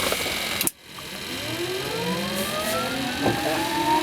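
Huey helicopter's turbine engine spooling up during start-up: a whine of several tones climbing steadily in pitch, after a sudden brief break in the sound about a second in.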